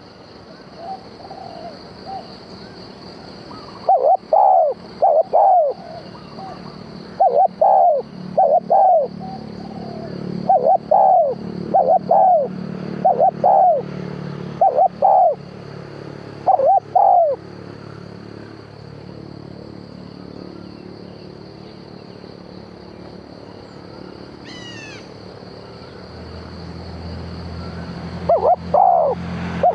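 Dove cooing from a decoy used to lure wild doves: short coo notes, mostly in pairs, repeating about every second for a stretch, then pausing and starting again near the end. A brief high chirp comes in the pause, over a steady high-pitched hiss.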